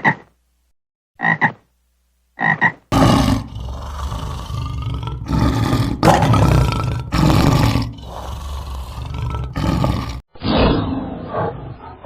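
Animal calls: three short, pitched double calls about a second apart, then from about three seconds in a series of loud, rough roaring calls, each lasting about a second, that die down near the end.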